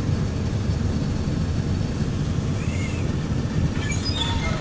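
Steady low hum of a laser back-glass removal machine running.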